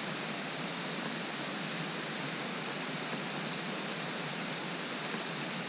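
Steady rain falling, an even hiss with a few faint drop ticks near the end.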